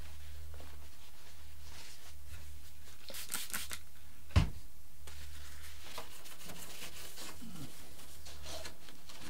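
Faint rustling of a paper towel being handled, over a steady low hum, with one sharp knock a little over four seconds in.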